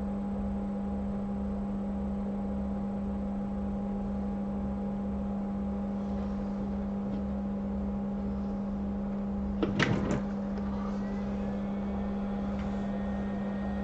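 Hot air rework station blowing with a steady electrical hum while a reballed IC is soldered back onto a phone board. A brief clatter of small clicks, from tools or tweezers on the bench, comes about ten seconds in.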